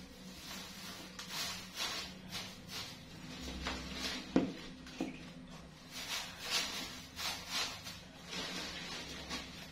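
Dry straw bedding rustling as it is dropped by hand into a plastic crate and gathered off the floor: a string of short rustles, with two light knocks about halfway through.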